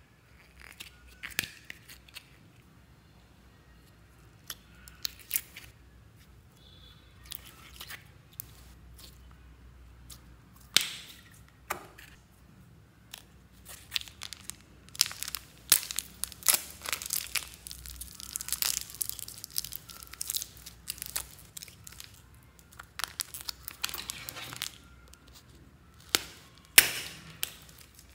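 Slime being squeezed out of soft plastic containers and worked by hand: crinkling plastic with sticky, crackling clicks. The clicks are scattered at first and come thick and fast through the second half.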